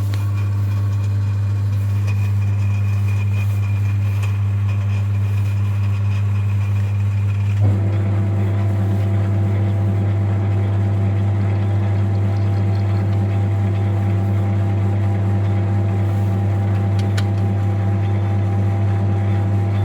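Metal lathe running steadily with a strong low hum while taking a skim cut in the combustion bowl of an aluminium VW 1.9 TDI piston. About eight seconds in, its tone changes as a higher whine stops and a new, lower set of steady tones sets in.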